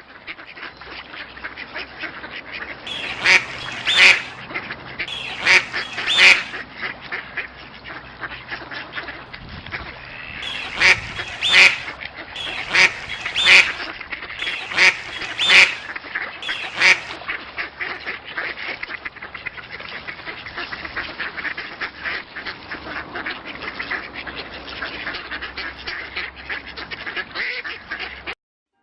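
A flock of ducks quacking on the water: a steady background of many overlapping calls, with loud single quacks standing out in clusters through the first half, then only the steady chatter, which cuts off suddenly near the end.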